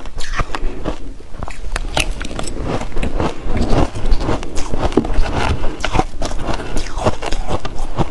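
Close-miked chewing of shaved ice: a quick, irregular run of crisp crunches, with a metal spoon scraping and scooping ice in a plastic bowl.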